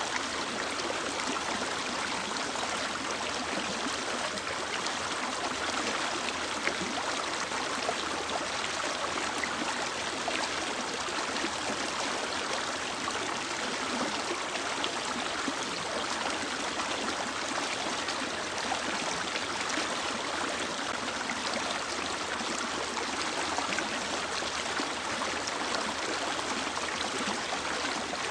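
Mountain stream flowing steadily over rocks: continuous rushing and splashing water with fine bubbling detail.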